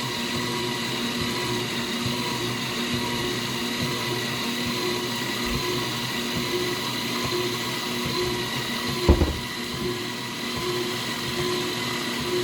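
KitchenAid multi-cooker running steadily while frying rice, a motor hum with a high whine over a noisy bed. There is a single short knock about nine seconds in.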